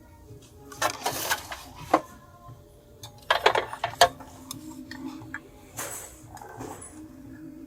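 A series of irregular clinks and knocks, like dishes or utensils being handled, over faint background music.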